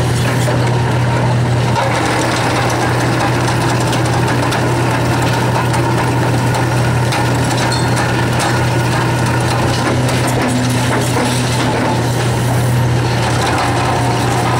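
Hydraulic excavator's engine and hydraulics running steadily under load, working an NPK SV500 twin-cylinder crusher as its jaws close on reinforced concrete, with occasional faint cracks of breaking concrete.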